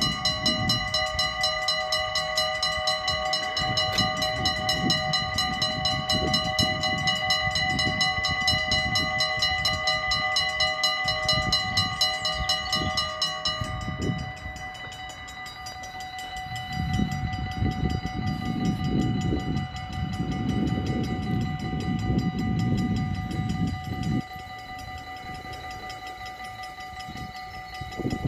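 Two mechanical warning bells of a Dutch automatic half-barrier level crossing ringing in rapid, steady strokes, signalling an approaching train. About halfway through, one bell's ringing stops and the other rings on. An uneven low rumble runs underneath, heaviest in the second half.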